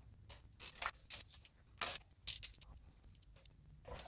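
Faint, irregular light clicks and taps of a spark plug socket and extension being seated on the plugs and turned, checking that each plug is tight in an SR20DET cylinder head.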